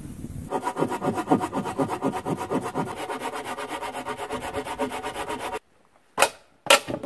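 Hand saw cutting through a log of firewood in fast, even strokes. The sawing stops suddenly about five and a half seconds in, and two sharp wooden knocks follow.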